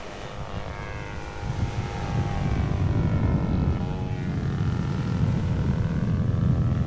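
Small propeller-driven target drone flying overhead, its engine a steady buzz that grows louder about two seconds in, the pitch sliding as it passes.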